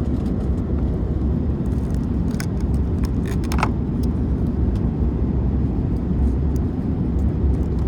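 Steady low roar of an airliner cabin in flight, with a few light clicks about two and a half and three and a half seconds in.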